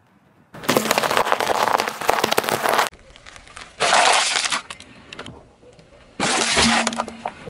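Objects crunching and crackling under a car tyre on asphalt, in three separate bursts. The first is a long run of dense crackling as a pile of small pastel-coloured balls is crushed, starting about half a second in. A short crackle of a thin clear plastic piece comes around four seconds in, and a plastic water bottle crunches and cracks from about six seconds in.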